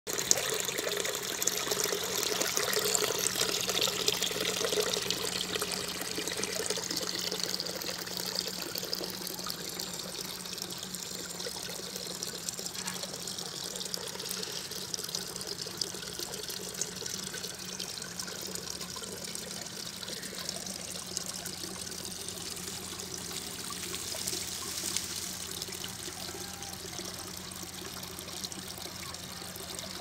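Water trickling and pouring through a tiered garden fountain of clay pots, spilling from a tipped pot into a bowl and on into a lower pot; louder over the first several seconds, then softer and steady. A faint low hum runs underneath.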